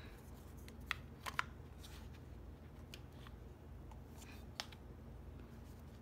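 Hard plastic toy pieces, a Smurf kids-meal figure and its red base, handled and knocking together in small sharp clicks: three close together about a second in and one more a few seconds later, over a faint low hum.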